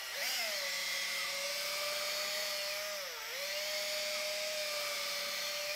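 Cordless drill spinning a 12 mm, 120-grit abrasive honing brush inside a lifter bore of a cylinder head, a steady motor whine. The pitch sags briefly about three seconds in, then picks back up.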